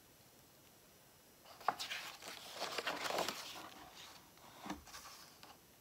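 A page of a hardcover picture book being turned: a paper rustle with a sharp flick about a second and a half in, then softer rustles near the end.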